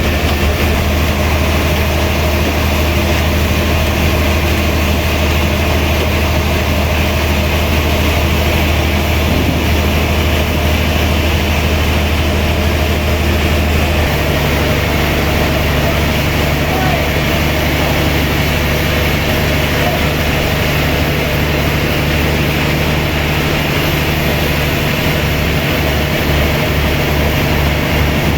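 Heavy sawmill machinery running steadily with a loud low drone; about halfway through, the low hum steps up to a higher pitch.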